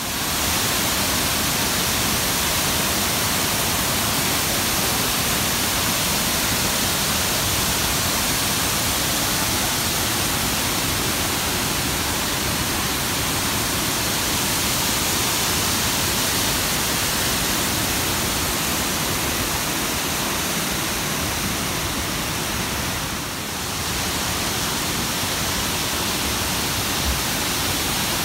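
Steady loud rush of the Una River's cascading waterfalls, water pouring over rock, briefly softer about five seconds before the end.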